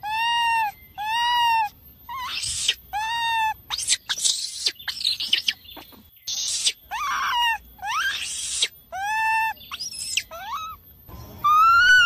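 Baby macaque calling over and over: about a dozen high, arched coos, each under a second, with harsher screeches between them and quick rising calls near the end. These are the distress calls of a young monkey calling for its mother, used as a lure call.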